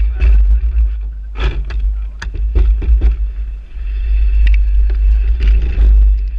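Heavy low rumble with scattered irregular knocks and rattles, picked up by a camera mounted on an Aprilia RS 125 motorcycle moving slowly.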